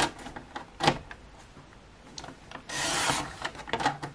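Paper trimmer cutting cardstock: a couple of sharp clicks as the rail is set and the cutter readied, then the blade carriage slides down the track and slices through the card in one scraping stroke near three seconds in, followed by a few light clicks.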